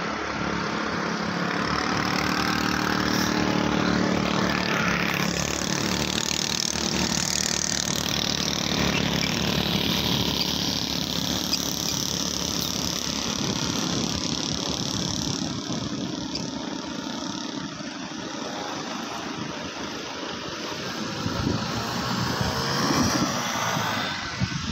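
Sea wind blowing across the microphone: a steady rushing noise with low buffeting that rises and falls in gusts.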